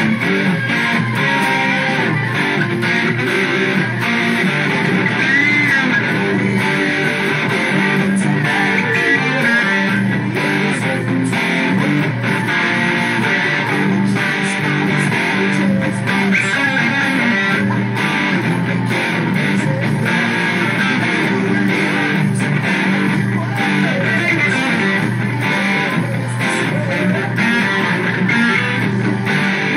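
Electric guitar played with a pick, a continuous stream of notes.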